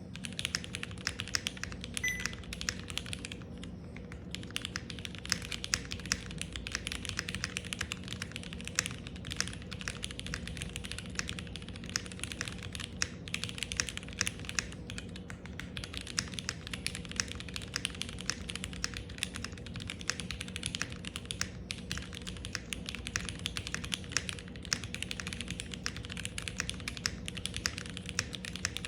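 Continuous fast typing on a QK65 mechanical keyboard with Cherry MX Black Hyperglide linear switches: a dense run of key strokes and bottom-outs, with a brief pause about three and a half seconds in.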